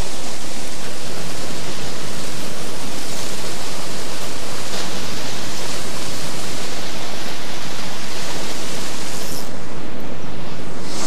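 Wind across an action camera's microphone: a loud, steady rushing hiss with no separate sounds in it, dulling slightly in the top end for about a second near the end.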